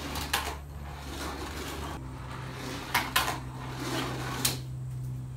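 Hot Wheels Monster Jam die-cast toy trucks running on orange plastic track, with a few sharp clacks as they strike the track and rig, two close together about three seconds in. A steady low hum lies underneath.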